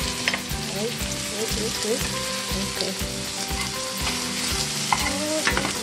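Chopped onions and orange bell pepper sizzling in hot oil in a wok, with a steady frying hiss. They are stirred with a metal spoon that clicks against the pan a few times.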